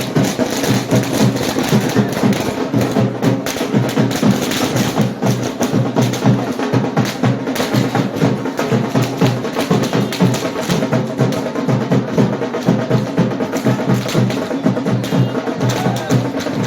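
Loud drum-driven music with a fast, steady beat.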